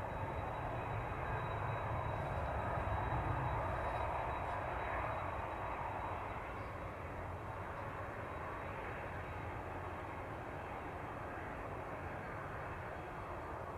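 Jet engines of a Boeing 767-300ER airliner running, a steady rush that eases off slightly about six seconds in.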